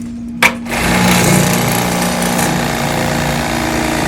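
Electric fillet knife running with a steady buzz as its reciprocating blades cut into a crappie. There is a sharp click about half a second in, and after it the buzz grows louder.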